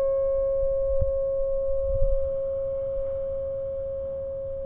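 Metal ringing after a rifle shot: one steady clear tone with a fainter overtone above it, fading slowly, with a faint click about a second in.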